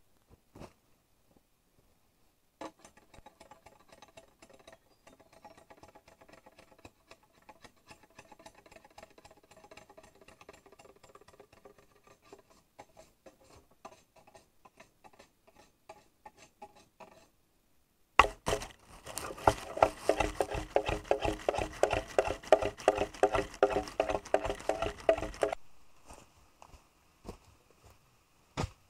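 A hand tool working bamboo in quick, even, ringing strokes: faint at first, then much louder for about seven seconds after a short pause.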